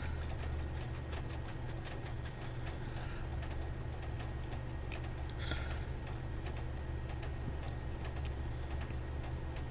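Casio Pro Trek PRT-B50 watch ticking faintly and steadily, running again on its fresh battery, over a low steady hum. A brief handling noise comes about five and a half seconds in.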